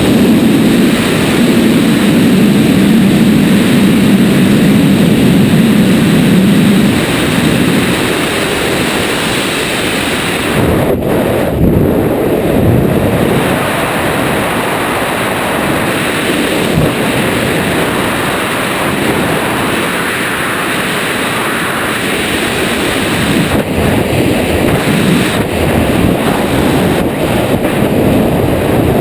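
Freefall airflow buffeting a wingsuit flyer's body-mounted camera microphone: a loud, steady rush of wind, heaviest in the first several seconds and easing slightly after.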